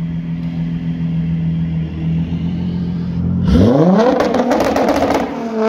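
Audi A6 C7 3.0 TDI V6 diesel idling steadily through a custom turbo-back exhaust, then revved hard about three and a half seconds in. It is held on a hard-cut 'popcorn' limiter, which breaks the note into a rapid string of pops and crackles.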